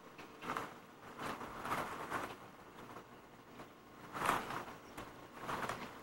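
Faint rustling and scuffing of a giant panda moving about her den and handling nesting material as she builds a nest, in several short bursts.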